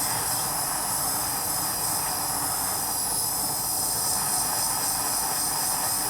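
Small jeweller's soldering torch flame hissing steadily while heating a bezel joint.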